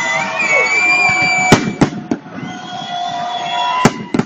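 Holiday salute fireworks exploding: a loud sharp bang about one and a half seconds in, two more close behind, and another pair near the end, with held wavering tones between the bangs.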